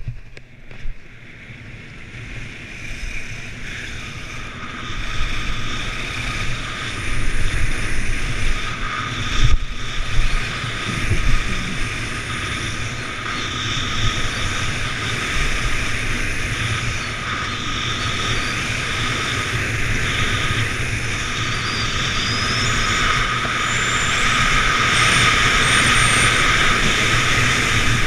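Wind rushing and buffeting on an action camera's microphone, with skis scraping and carving over groomed snow on a fast downhill run. It builds over the first few seconds as the skier picks up speed, then holds as a steady rush.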